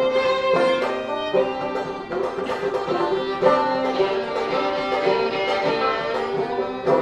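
Live acoustic string band playing a bluegrass-style song: a bowed fiddle over plucked strings, in steady held and changing notes.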